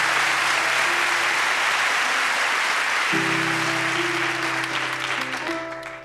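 Studio audience applauding, dying away toward the end, while an upright piano plays a slow tune that comes in stronger about three seconds in.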